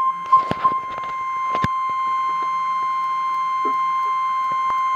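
Emergency alert tone for a tornado watch: the steady, high, single-pitch NOAA Weather Radio warning alarm at about 1050 Hz, held without a break. A few knocks and clicks come in the first second and a half, the loudest in the first second.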